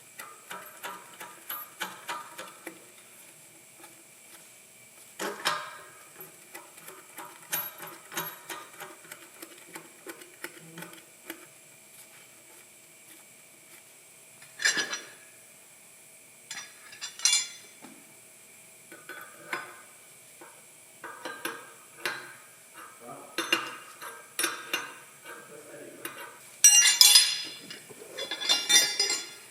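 Metal tool pieces clinking and knocking together as they are handled, in irregular single knocks, with a louder stretch of rattling near the end.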